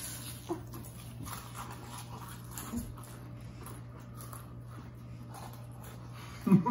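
Goldfish crackers being raked off a stone countertop by hand and crunched by two people eating as fast as they can: a faint, continuous patter of small clicks and chewing. Near the end a short, loud burst of voice breaks in.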